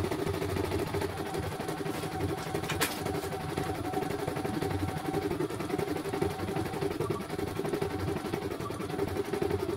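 CNY E900 computerised embroidery machine stitching a design, its needle running in a fast, even mechanical rhythm. One sharp click comes a little under three seconds in.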